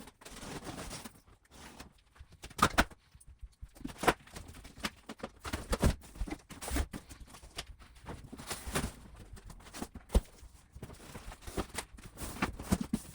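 Irregular knocks, scrapes and rustles of a large cardboard e-bike shipping box being opened and handled, with several sharp thuds of the box and its contents being moved.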